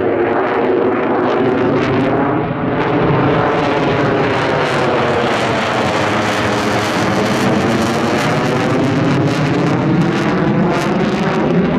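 Lockheed Martin F-35 Lightning II's single F135 afterburning turbofan making loud, steady jet noise as the fighter flies a practice pass, with a sweeping, phasing quality as it goes by.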